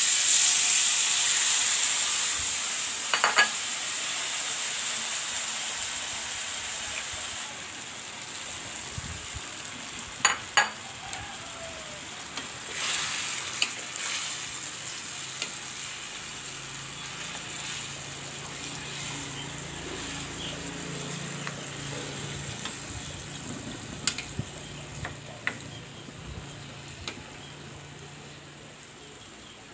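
Sauce sizzling loudly as it is poured into a hot wok of fried chicken and shallots, the sizzle slowly dying down as it simmers and is stirred. There are a few sharp knocks of the stirring utensils against the wok.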